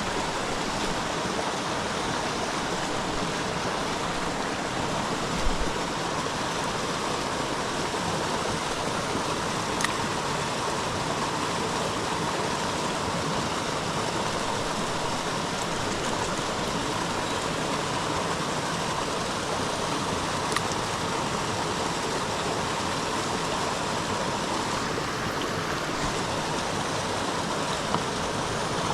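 Creek water rushing steadily, with a few faint clicks.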